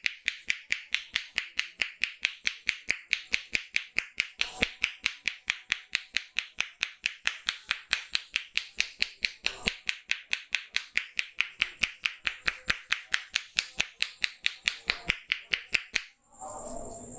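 Rapid, evenly paced hand strikes of a head massage: sharp claps about five a second in a steady rhythm that stops suddenly near the end.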